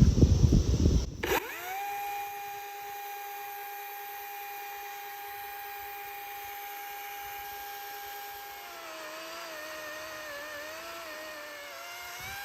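A loud rough noise stops abruptly about a second in. Then a power tool's motor spins up to a steady high whine, and near nine seconds in its pitch drops and wavers as if taking load in the cut.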